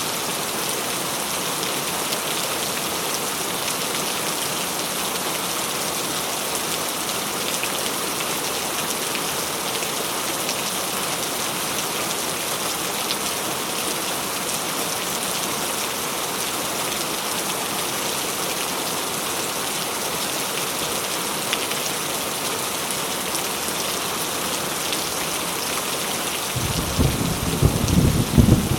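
Heavy rain pouring steadily. Near the end a loud clap of thunder breaks in suddenly and rolls on as a low rumble.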